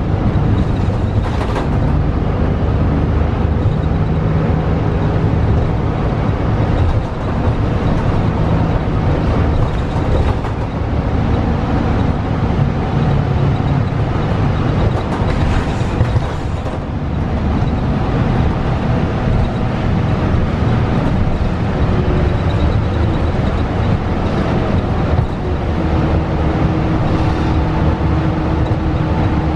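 Inside the cabin of a 2012 Gillig Low Floor hybrid bus under way: the Cummins ISL9 diesel and Voith DIWAhybrid drivetrain run with a steady, heavy road rumble. Faint whining tones rise and fall in the middle, and a faint steady tone comes in near the end.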